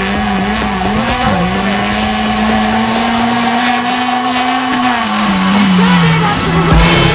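Small rally car's engine held at high revs as it slides on dirt, the note climbing a little in the middle and dropping back about five seconds in.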